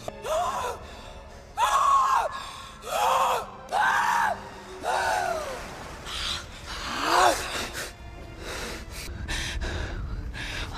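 A Na'vi woman's short gasping, snarling cries, about six of them, each rising and falling in pitch, spaced roughly a second apart.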